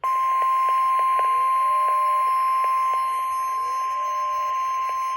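NOAA Weather Radio warning alarm tone (1050 Hz), played by a weather radio receiver: one loud, steady, unbroken high tone over a hiss. It heralds a severe thunderstorm warning broadcast.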